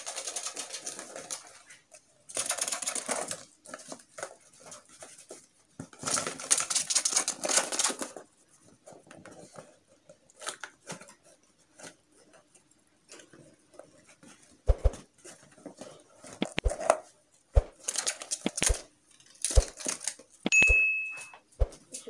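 A cardboard bird-carrier box rustling and scraping as it is handled against a wire birdcage, in three bursts. After that comes a run of sharp knocks and taps, with one short high peep near the end.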